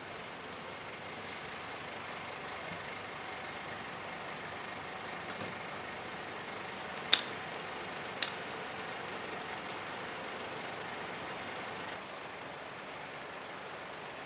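Parked fire engines idling steadily, a continuous engine drone with a faint steady hum. Two sharp clicks or knocks about a second apart, a little after halfway.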